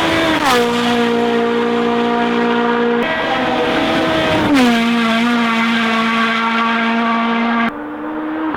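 Rally1 cars with 1.6-litre turbocharged four-cylinder engines passing flat out, one after another. Each engine note drops sharply in pitch as the car goes by, then runs on steadily as it moves away.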